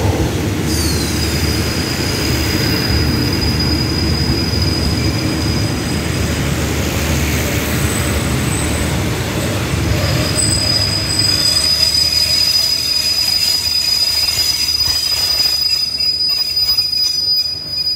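Express train's passenger coaches rolling slowly alongside the platform and braking to a stop. A steady high-pitched squeal comes from the wheels; it drops out for a few seconds in the middle, then returns, and the low rumble of the wheels dies away near the end as the train halts.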